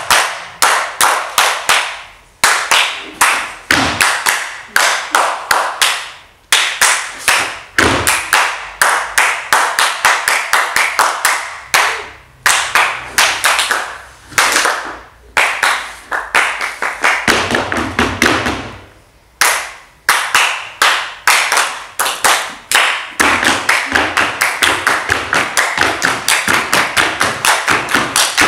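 Stage performers' body percussion: fast rhythmic hand claps and foot taps on a wooden stage floor, in phrases broken by short pauses, with some heavier thumps.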